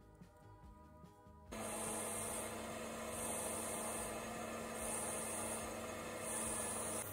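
Faint background music. Then, about one and a half seconds in, a metal lathe cuts in suddenly with a steady running hum as a centre drill in the tailstock chuck works the end of a spinning brass rod. A high hiss comes and goes four times.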